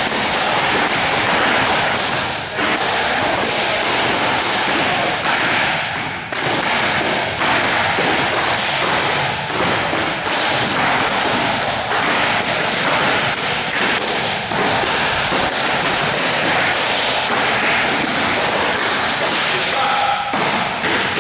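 Kicks and punches landing on kick shields and Thai pads: many overlapping thuds and slaps from several pairs hitting at once.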